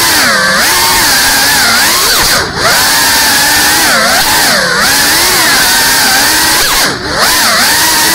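Small FPV quadcopter's brushless motors and propellers whining, the pitch rising and falling constantly with the throttle. Twice, about two and a half seconds in and near the end, the whine drops out briefly and swoops back up as the throttle is chopped and punched again.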